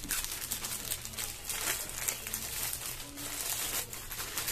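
Plastic courier pouch being pulled open and crinkled by hand, an irregular run of crackles and rustles.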